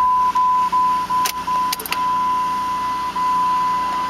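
Steady, high electronic warning tone that drops out briefly every so often, with a few sharp clicks about a second and two seconds in.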